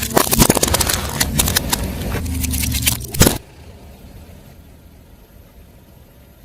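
Car tyre rolling over and crushing crunchy objects: a dense run of cracks and crackles over the car's running engine. It ends with one loud snap about three seconds in, and the sound stops abruptly.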